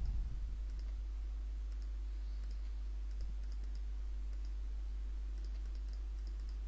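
Faint, scattered computer mouse clicks over a steady low electrical hum.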